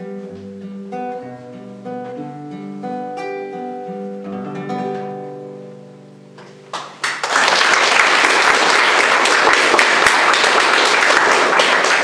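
Two classical guitars playing a duet: plucked notes and chords that slow and fade out as the piece ends. About a second after the last notes die away, loud audience applause breaks out and continues.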